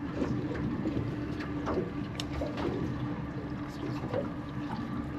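Small boat's ambience: a steady low hum with water lapping against the hull and a few light knocks.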